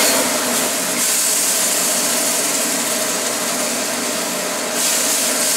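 Steady hiss and hum of kitchen equipment running, with the hiss brightening briefly near the end.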